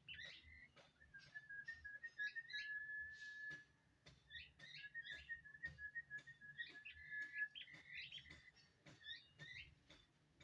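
Young birds calling: repeated short, high, rising chirps, with a long, steady, slightly trilled whistle held for two or three seconds at a time, twice. Sharp faint clicks are scattered throughout.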